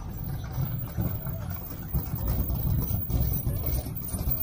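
Car engine running, a low rumble that swells and dips unevenly.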